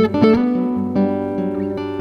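Acoustic guitar played fingerstyle, with looped layers from a Zoom G3Xn multi-effects pedal. Plucked notes come in at the start and again about a second in, ringing over a held bass note.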